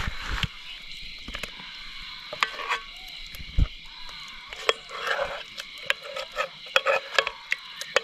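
A utensil stirring and scraping in a cooking pot over a wood fire, with frequent sharp clicks and clinks of metal on metal. A steady high drone runs underneath.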